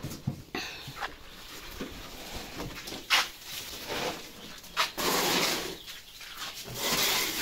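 A brood of young chicks cheeping. Knocks and two louder stretches of rustling noise, about five and seven seconds in, come from people moving close by.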